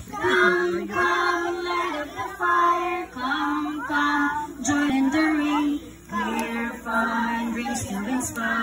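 A group of voices singing a slow campfire song unaccompanied, in long held notes.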